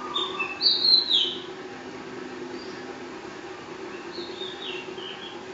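A small bird chirps in two quick runs of short falling notes, one in the first second and a half and another near the end. Under the chirps runs the steady low hum of a running Kawa ceiling fan motor.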